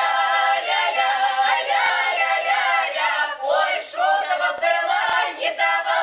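Russian traditional folk ensemble of mostly women's voices with one man singing a comic village song from the Saratov region together, a cappella and unaccompanied, in a loud open folk voice.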